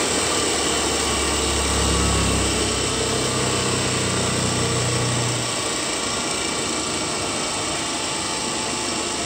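DC motor (a 220 V, 1600 rpm machine) running from a student-built buck converter, giving a steady whir. A low hum under it rises slightly in pitch about two seconds in and stops about five and a half seconds in.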